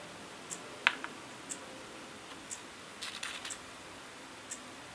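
Tiny metal spoon clinking against a miniature ceramic cup and bowl while scooping powder: one sharp clink about a second in, then a quick cluster of light clicks about three seconds in. A faint, even tick about once a second runs underneath.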